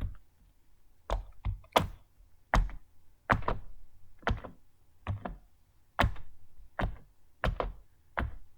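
Silicone push-pop fidget toys (a Poppet and a Simple Dimple) having their bubbles pressed in, giving a string of sharp pops, often in pairs, about two a second.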